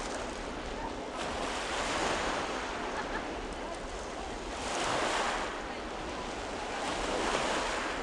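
Waves breaking on a pebble beach, swelling and falling back three times, over the steady rolling noise of a passenger train passing on the embankment.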